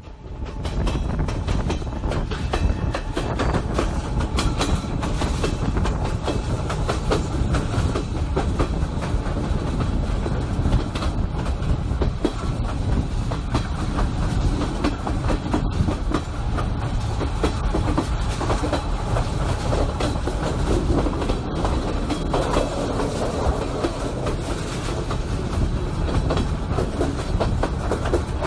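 Train wheels rolling along steel rails: a steady low rumble with a dense, irregular clatter of wheels over the track.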